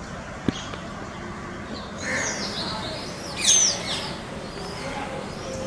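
Sunbird calling: high, thin chirps and sweeping notes start about two seconds in, with a loud, sharp, downslurred call around three and a half seconds in. A single sharp click about half a second in.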